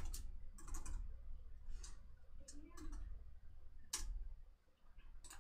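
Computer keyboard keys clicking in a scattered, irregular handful of strokes, the sharpest about four seconds in.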